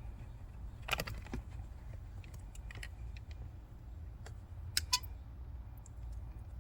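A few small, sharp clicks and light rattles of plastic trim pieces and wiring connectors being handled during a car door-sill light installation, over a steady low hum.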